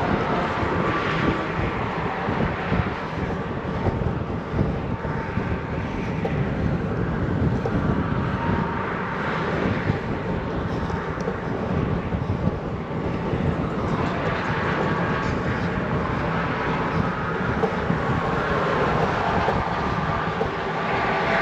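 Wind buffeting the microphone of a moving action camera, mixed with the steady noise of traffic on the adjacent road, which swells and fades as vehicles pass.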